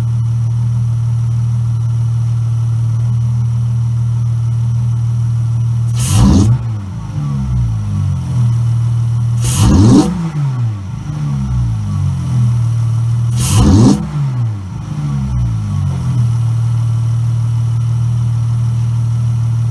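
Chrysler 300's 3.6 Pentistar V6, fitted with a new cold air intake and a free-flowing exhaust, idling steadily and revved three times a few seconds apart, each rev rising sharply and falling back to idle.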